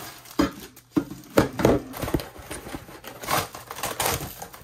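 Plastic wrapping crinkling and a cardboard shipping box rustling and scraping as packed items are pulled out of it, in a string of sharp, uneven rustles, the loudest about one and a half seconds in.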